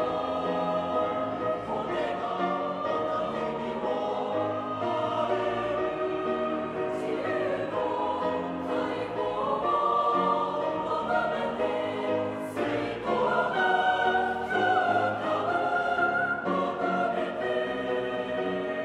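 Mixed choir singing sustained, slowly shifting chords in Japanese with piano accompaniment, recorded live in a concert hall; the voices move up to higher held notes about two-thirds of the way through.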